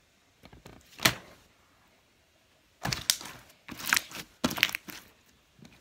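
Slime being worked by hand to make a bubble: one sharp click about a second in, then a run of irregular clicks and crackles from about three seconds.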